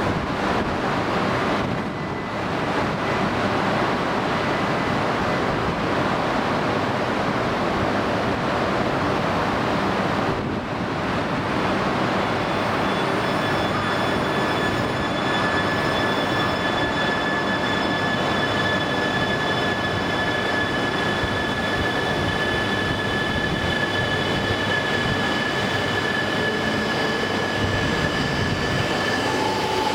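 E3 series 2000 Shinkansen, coupled to an E2 series 1000, starting to pull out of the station over a steady noise. About twelve seconds in, a high steady whine from the traction equipment sets in and holds as the train rolls off.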